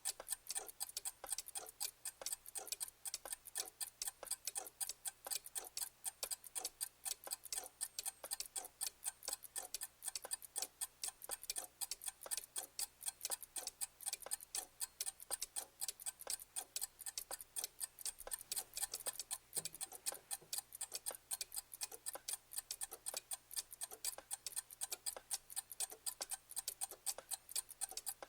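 Mechanical clock ticking steadily, with rapid, even ticks several times a second.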